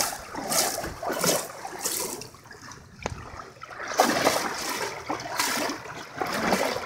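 Splashing of someone wading through floodwater, one splash about every two-thirds of a second, stopping for a stretch in the middle and starting again about four seconds in. Rain pattering on the water's surface underneath.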